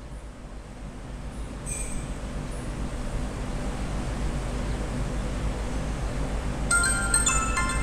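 Steady background rumble and hiss that grows gradually louder, with a short high blip about two seconds in. Near the end, a chiming ringtone preview starts playing from the HTC Desire S phone's loudspeaker, several bright overlapping notes.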